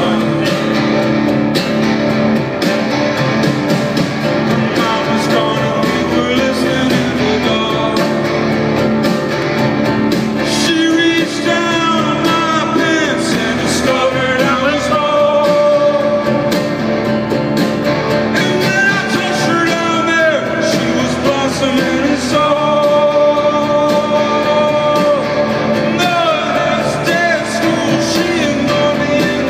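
Live solo performance: a man singing with his own acoustic guitar accompaniment, heard through the stage PA.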